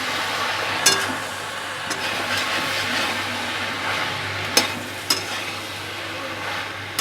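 Fried onions and capsicum in sauce sizzling in a kadai as they are stirred, a steady hiss with a few sharp clicks, one about a second in and two close together later on.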